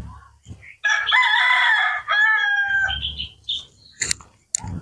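A rooster crowing once, a long two-part call lasting about two seconds, followed near the end by two short sharp clicks.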